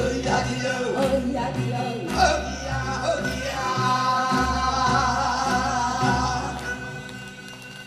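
Performers singing into microphones in a sori-geuk ensemble song over an accompaniment with a steady low beat, holding long notes before dying down near the end.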